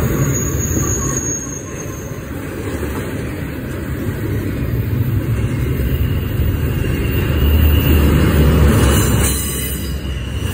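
Double-stack intermodal freight train rolling past: steady rumble and clatter of the container well cars' wheels on the rails, swelling louder about eight seconds in before easing off.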